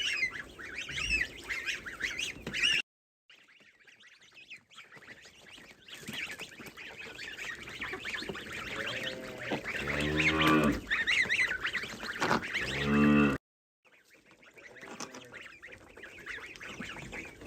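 Farmyard geese honking repeatedly, with a cow mooing twice in the second half.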